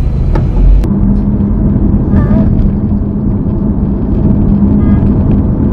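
Car cabin noise while driving: a steady low rumble of road and engine. About a second in there is a short click, and a steady low hum comes in after it and holds.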